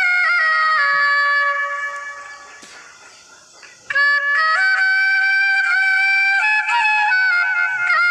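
Harmonium playing a slow melody of sustained, reedy notes that step from pitch to pitch. The sound fades away over a couple of seconds near the start, then the melody comes back in abruptly about four seconds in.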